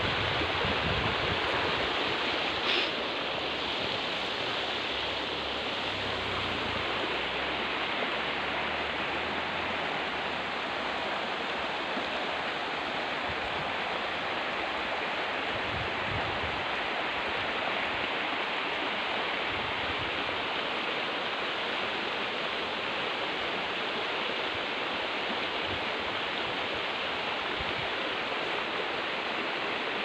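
Steady rushing of a wide, shallow river flowing over rocks, an even hiss of water with no break, and a brief high chirp about three seconds in.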